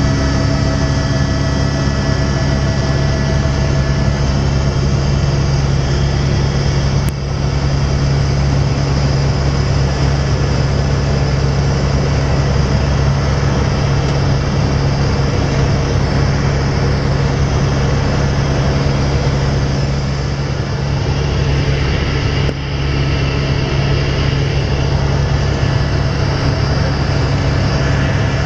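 Helicopter in flight heard from inside the cabin: the steady, loud drone of engine and rotor, a strong low hum under a hiss, with two very brief dips in level.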